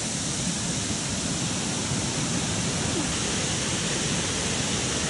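Heavy rain falling, a steady hiss with no break.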